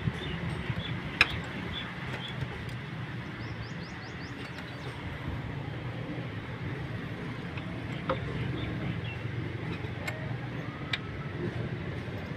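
A few sharp metallic clicks from hand work deep in a Suzuki Cultus engine bay, around the starter motor, over a steady low mechanical hum.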